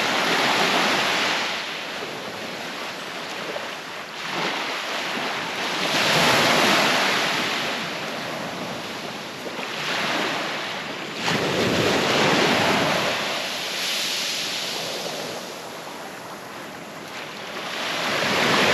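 Surf breaking and washing up a sand beach, swelling and fading several times, about every five or six seconds. There is some wind noise on the microphone.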